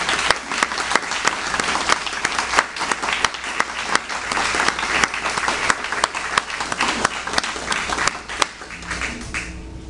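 Audience applauding: many hands clapping in a dense patter that thins out and stops near the end.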